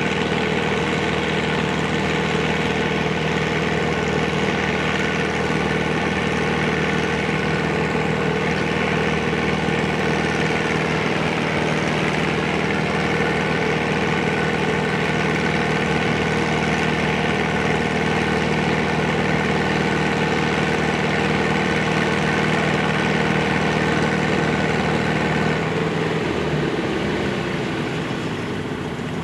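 Antique farm tractor engine pulling a weight-transfer sled under heavy load, running steadily with its pitch sagging slightly near the middle. About three seconds before the end it drops off sharply as the pull ends.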